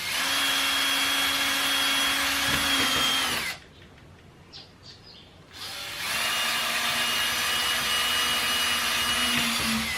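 Power drill boring pilot holes through a scrap of wood and PVC pipe, running steadily in two runs of about three and a half and four seconds with a short pause between.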